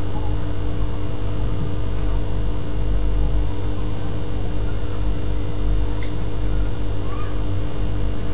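Steady electrical hum with an even hiss and several constant tones, the background noise of the recording setup, with no speech.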